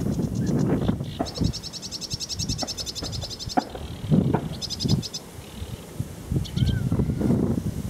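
Sedge warbler singing: rapid, high chattering trills, one long run starting about a second in and lasting over two seconds, then shorter bursts. Gusts of wind buffet the microphone throughout.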